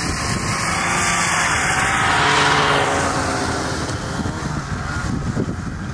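An engine of a passing motor vehicle, growing louder to a peak about halfway through and then fading, its pitch gliding as it goes by.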